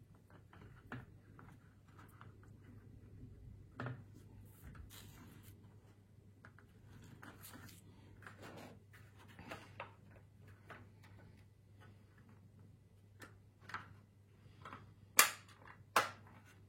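Plastic handling clicks and rustles as a Pinlock anti-fog insert is worked onto a motorcycle helmet visor, with two sharp clicks near the end.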